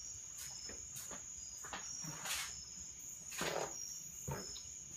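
Rustling and light handling sounds of a paper towel being fetched, the loudest about two and three and a half seconds in, over a constant high-pitched ringing tone with short repeated chirps.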